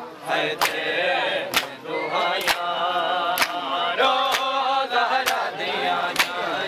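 Men chanting a noha lament together while beating their chests in unison in matam, each sharp slap of hands on bare chests landing in time about once a second.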